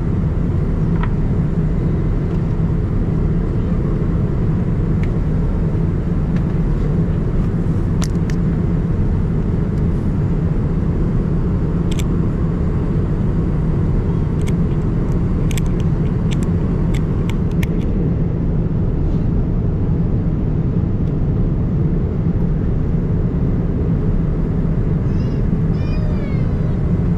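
Steady, loud rumble of engine and air noise heard inside the cabin of a Boeing 787-9, unchanging throughout, with a few faint sharp ticks partway through.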